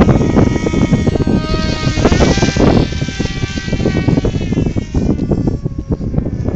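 Radio-controlled model plane's motor and propeller whining as it flies low past, its pitch swinging about two seconds in and fading away after about five seconds. Heavy wind rumble on the microphone throughout.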